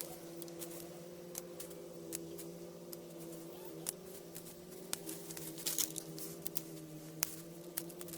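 Hand pruning with secateurs: irregular sharp snips and clicks of the blades and twigs, a few close together near the end. A steady low hum runs underneath.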